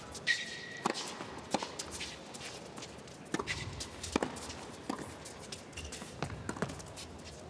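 Tennis rally on a hard court: a string of sharp racket-on-ball hits, some as quick net volleys, with a short shoe squeak on the court near the start.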